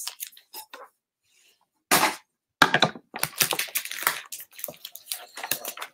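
Tape-sealed paper packaging being torn open and crumpled by hand: a few short clicks, a loud tear about two seconds in, then dense crackling of paper and tape.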